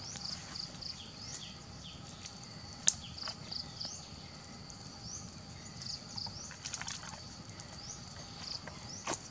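Steady high-pitched insect drone with repeated short chirps over it, and one sharp woody crack about three seconds in, with a few lighter clicks near the end.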